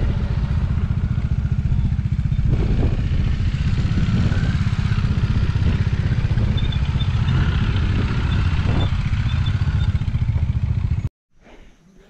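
Bajaj single-cylinder motorcycle engine running steadily close by on a rough dirt track; the sound cuts off abruptly near the end.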